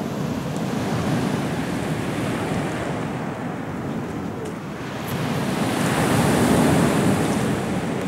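Small sea waves breaking and washing up a pebble beach, a steady surf hiss. A bigger wave comes in about five seconds in and is the loudest part.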